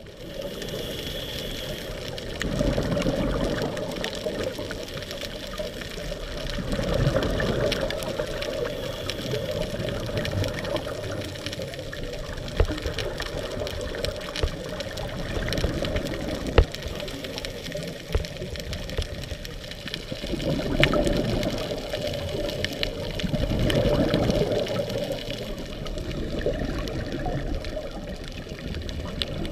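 Underwater sound heard through a camera housing: a scuba regulator's exhaled bubbles surging every few seconds over a steady wash of water noise, with a couple of sharp clicks.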